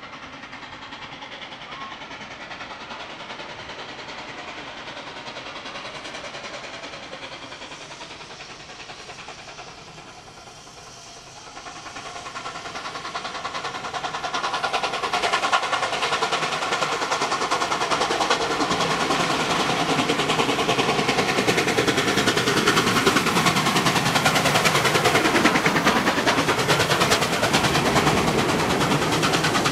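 NSW 59 class steam locomotive 5917 approaching and passing, with its train. It is faint at first, grows loud about halfway through, and then keeps up a fast, even beat as it runs by.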